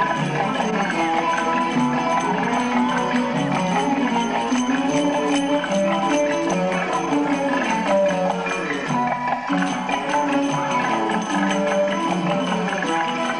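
Instrumental Middle Eastern belly-dance music with finger cymbals (zils) ringing in a quick, steady rhythm over the melody.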